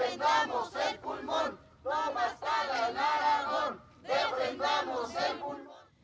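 Crowd of protesters chanting a slogan together, in repeated phrases of about a second and a half with short pauses between them.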